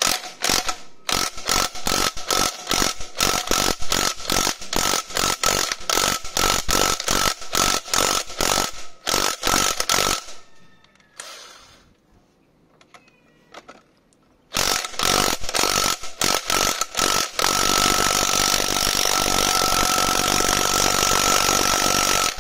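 Electric impact wrench hammering on a scooter's rear wheel nut, working to loosen it. For about ten seconds it comes in a quick string of short, sharp bursts, then pauses. After the pause the bursts start again, and for the last five seconds it runs in one steady, unbroken stretch of hammering with a ringing tone.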